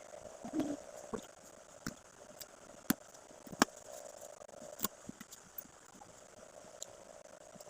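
Scattered light clicks and taps with some rustling, as gift boxes and their packaging are handled and unpacked, over a faint steady hum.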